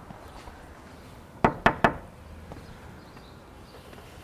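Three quick knocks on a front door.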